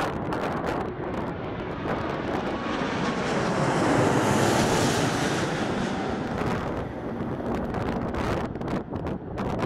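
Four-engine Airbus A340 on landing approach passing low overhead: its jet engines swell to their loudest about four to five seconds in, then fade as it moves away. Gusty wind buffets the microphone throughout.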